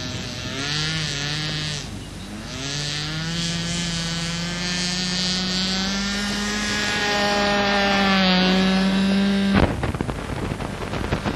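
Radio-controlled model airplane's small engine running at high revs, its pitch climbing steadily as the throttle is opened for the takeoff run and climb. Near the end the engine tone breaks off into rough wind noise on the microphone.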